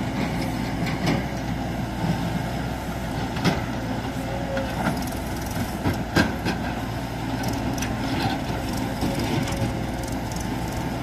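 Cat 424 backhoe loader's diesel engine running steadily under load while the backhoe digs soil and swings to dump it, with several sharp metallic clanks from the bucket and arm, the loudest a little after the middle.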